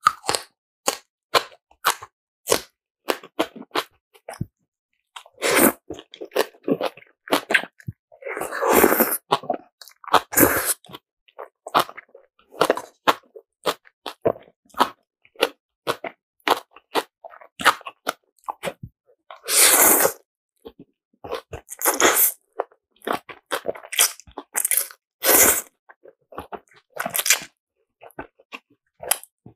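Close-miked mukbang eating sounds: steady chewing and crunching of spicy kimchi, with many short wet clicks and a few longer slurps of black bean noodles.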